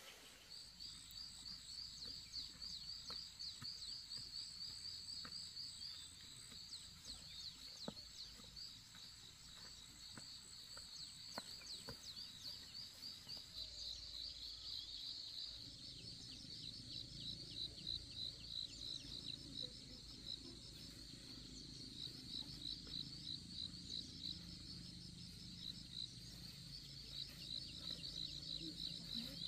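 Insects chirring in a faint, steady, high-pitched pulsing chorus, with a low rumble joining about halfway through.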